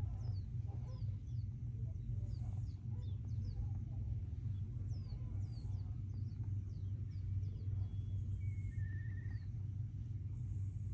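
Small birds chirping: many short, high chirps that sweep downward, with a brief trill about eight seconds in, over a steady low rumble.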